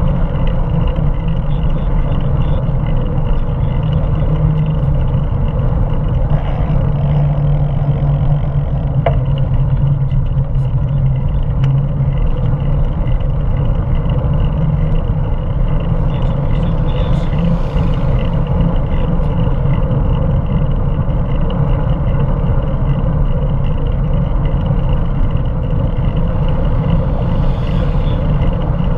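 Steady wind buffeting and road rumble on the microphone of a camera mounted on a moving bicycle, a continuous low roar.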